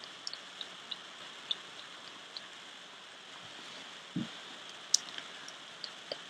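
Fireplace crackling: a steady hiss with scattered small pops and snaps, a soft low thump just after four seconds and a sharper snap about a second later.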